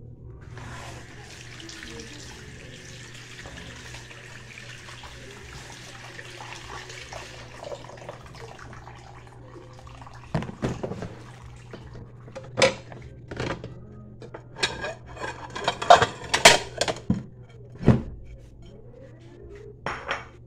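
Water running from the spout of a plastic water jug as tomatoes are rinsed under it by hand, a steady splashing stream for the first several seconds. From about ten seconds in come a series of sharp knocks and clatters as the wet tomatoes and a bowl are handled.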